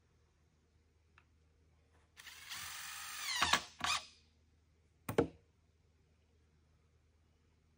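Cordless drill driving a screw into a timber beam: the motor runs for about a second and a half and its pitch drops as the screw seats. Two short bursts follow, the last about a second later.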